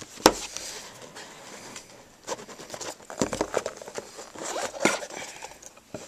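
Cardboard phone box and its packaging being handled and opened: irregular rustling, scraping and light tapping, with a sharp knock just after the start.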